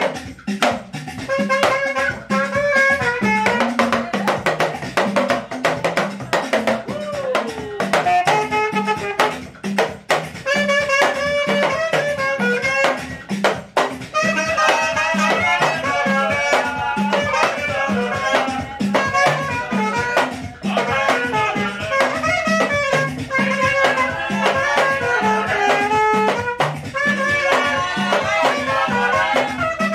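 Saxophone playing a melody over a steady backing beat of drums and bass.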